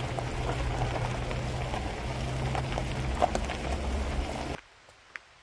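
A vehicle rolling slowly along a gravel forest road: a steady low engine and road hum with light crackling of gravel under the tyres. It cuts off abruptly about four and a half seconds in, leaving near silence with one faint click.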